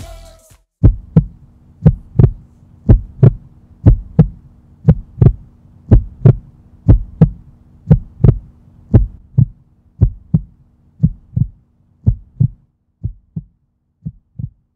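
Heartbeat sound: a steady lub-dub, paired thumps about once a second, over a low steady hum. Near the end the hum stops and the beats grow quieter.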